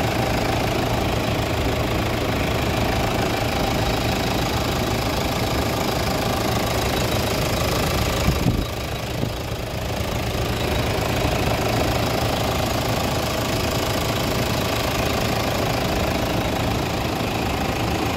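Toyota Land Cruiser Prado's four-cylinder D-4D common-rail turbo-diesel engine idling steadily. It heard with the bonnet open, briefly quieter about eight and a half seconds in.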